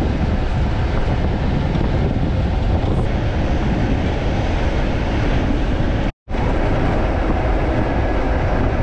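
Wind rushing and buffeting over the microphone held out of a moving van's open window, with steady road rumble underneath. The sound cuts out completely for a split second about six seconds in.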